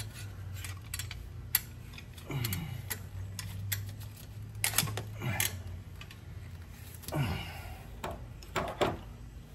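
Hand tools clicking and clinking on metal engine parts during exhaust manifold removal, with several short squeaks that slide down in pitch, over a low steady hum.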